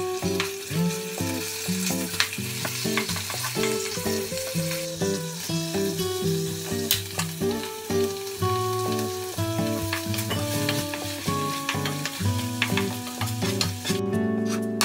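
Minced meat sizzling as it fries in a nonstick pan, stirred with a spoon, under background music with plucked notes. The sizzle stops abruptly near the end while the music carries on.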